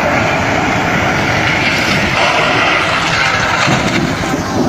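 Steady vehicle noise: a low engine and road rumble under a broad rushing haze, with no single bang.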